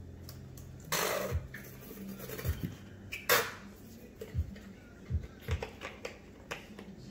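Plastic ketchup squeeze bottle squeezed upside down over a bowl: two sputtering squirts of ketchup and air, the second, a little after three seconds, shorter and louder, with soft knocks of handling in between. A low hum stops about two and a half seconds in.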